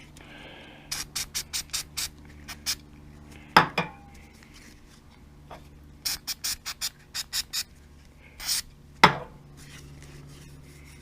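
Rust-preventive being rubbed onto a steel bender die by hand: two runs of quick scratchy back-and-forth strokes. Two sharp knocks and one short hiss come between them.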